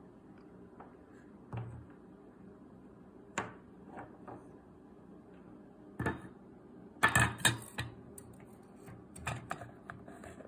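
Handling knocks and clatter from a small metal tin can and its lid: scattered light taps, with a cluster of louder clatters about seven seconds in and a few more near the end.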